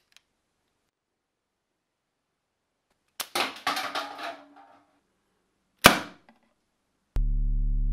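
A LEGO crossbow pistol being shot: a cluster of sharp clacks and clatter about three seconds in, then a single sharp snap a little before six seconds. Synthesizer music with a steady held chord starts near the end.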